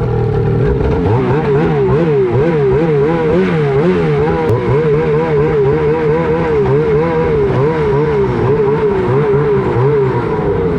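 An engine running, its pitch rising and falling evenly about twice a second.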